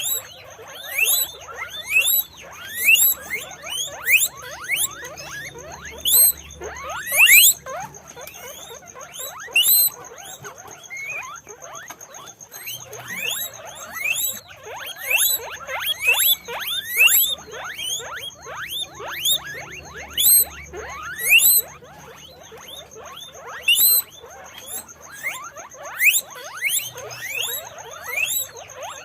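Guinea pigs wheeking: many short, sharply rising squeals, overlapping one another and coming in quick clusters throughout.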